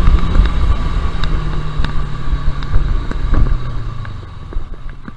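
Motorcycle engine running with wind on the microphone. Its pitch falls slowly as the bike eases off and slows, and the sound fades over the last second or so.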